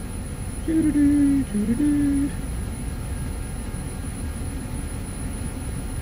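Steady low rumble of a running LG Multi V III VRF outdoor unit. About a second in, a man hums briefly, two short held notes.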